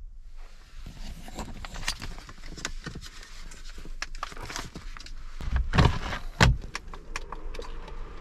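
Things being handled and set down: a run of clicks, clinks and rattles, with two heavy thumps about six seconds in.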